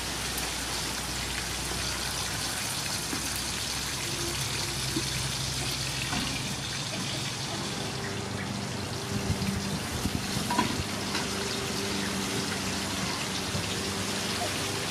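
Hot oil sizzling steadily in a wok as whole fish shallow-fry. A few light knocks of a metal spatula against the wok come about two-thirds of the way through.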